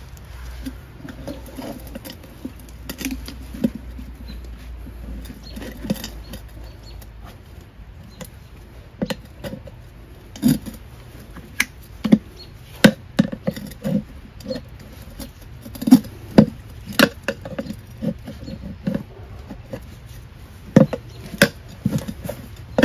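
Irregular knocks, taps and scraping of hand tools prying and tapping an ATV tire bead onto its rim. The knocks come faster and louder in the second half.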